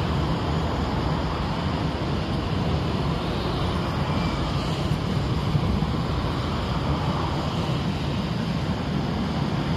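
Madrid Metro electric train running, a steady rumble with a rush of noise over it.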